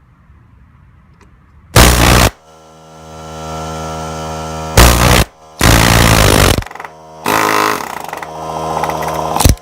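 Pneumatic air hammer rattling against the end of a brass thru-hull tube, flaring it over. It fires in several short bursts, then a longer run near the end, with a steady hum between bursts.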